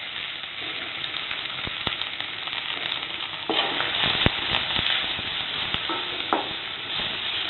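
Chopped onion, crushed garlic, curry leaves and green chilli sizzling in hot oil in a stainless steel kadai, the tempering stage of a stir-fry, while a wooden spatula scrapes and knocks against the pan. The sizzle gets louder about three and a half seconds in.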